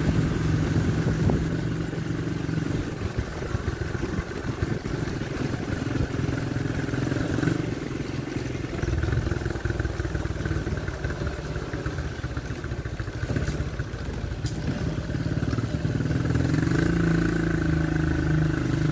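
Motorcycle engine running while riding, heard from the rider's seat over a steady rush of noise. Its steady engine note is strong at first, sinks under the noise through the middle and rises again near the end.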